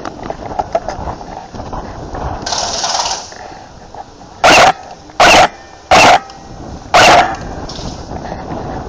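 A dog barking four times, loud and close, in the second half, after a brief hiss.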